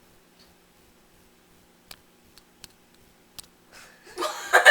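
A few faint, isolated clicks and taps in a quiet room, then a loud burst of laughter and voices near the end.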